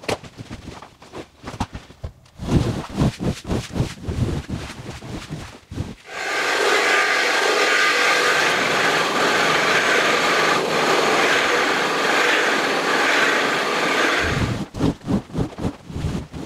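Wet rug cleaning: irregular scrubbing and wet handling strokes at first. Then, from about six seconds in, an upright electric brush-scrubbing machine works soapy foam into the rug with a steady hiss for about eight seconds. Near the end, rhythmic wet strokes return.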